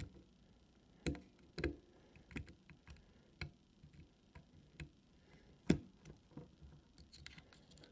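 Irregular small metal clicks and taps of tools working on a Mul-T-Lock Interactive+ lock cylinder as its retaining circlip is worked off. The loudest click comes a little before six seconds.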